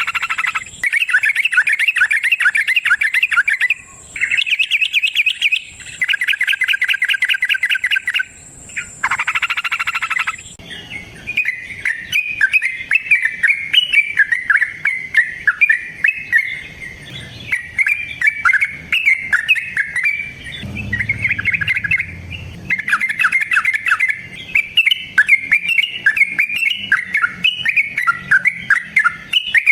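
Yellow-vented bulbul (trucukan) singing. For the first ten seconds it gives rapid rolling trills in blocks of a few seconds (the 'ropel' song), then a livelier run of varied chattering notes.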